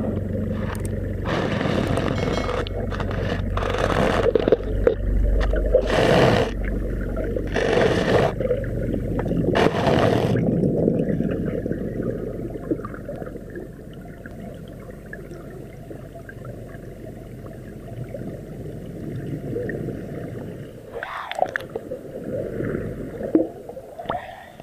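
Muffled underwater water noise heard through a camera housing: a low churning rumble with several loud rushing bursts in the first ten seconds, then quieter, with a few short splashy bursts near the end as the camera comes up to the surface.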